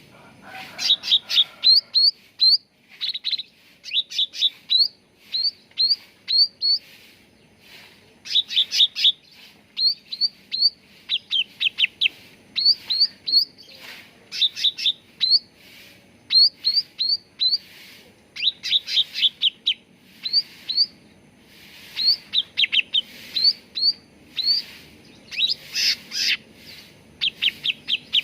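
Cucak ranting singing: quick runs of short, high chirping notes, a few at a time, repeated with brief pauses.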